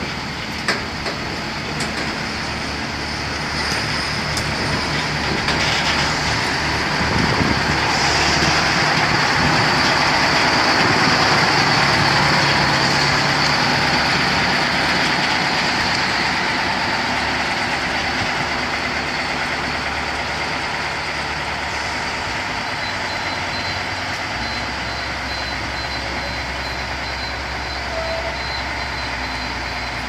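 Diesel locomotive and flatcar passing close by on the track, the engine and rolling wheels swelling to their loudest about ten seconds in, then fading slowly as the train moves away. A few sharp clicks come in the first two seconds.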